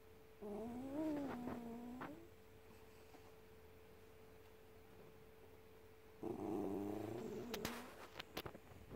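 Small white long-haired dog grumbling: two drawn-out, wavering whine-growls, one near the start and one about six seconds in, the sulky grumble of a dog not getting its way. A few sharp clicks follow near the end.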